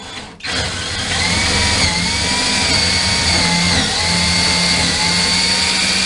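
Cordless drill boring a hole through a plywood camper wall: the motor starts about half a second in and runs steadily under load, its whine wavering slightly in pitch.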